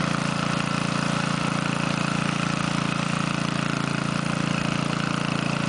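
Lawnmower engine running steadily at an even pitch.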